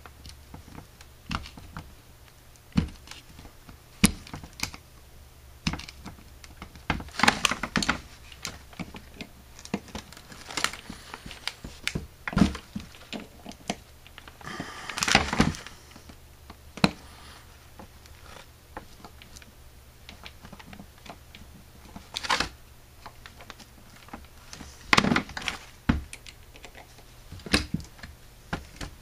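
Metal hand tools (a screwdriver and pliers) clicking, tapping and scraping against a Carter RBS one-barrel carburetor's metal body as it is taken apart. The clicks and knocks come irregularly, with a denser second-long stretch about halfway through.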